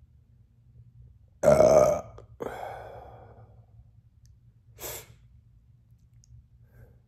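A man's loud burp about a second and a half in, then a second, fading burp, and a short sharp exhale near the five-second mark.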